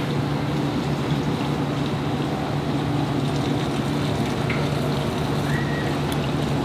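Steady motor hum with water churning in a bait tank.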